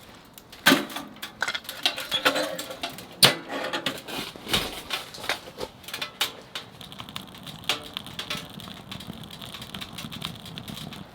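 Firewood crackling and popping in a wood stove: rapid, irregular snaps, with a couple of louder knocks about one and three seconds in.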